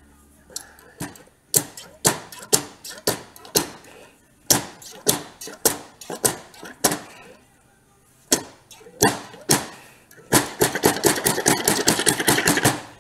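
A Honda CT70 front fork's inner tube being yanked up and slammed again and again inside its lower slider, to knock it out past the fork seal that traps it: sharp metal clanks in bursts, turning into a rapid, almost continuous clatter for the last few seconds.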